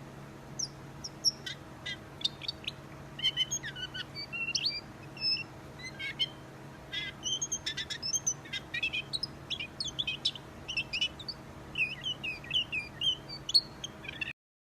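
Small songbird chirping and twittering: a quick, nearly continuous jumble of short high notes and brief trills, over a faint steady low hum. It stops abruptly near the end.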